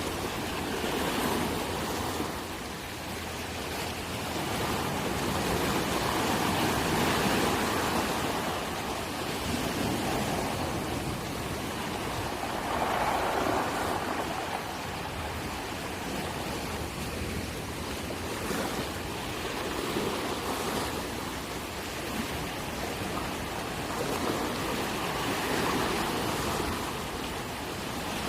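Moving water rushing and splashing, swelling and easing every few seconds.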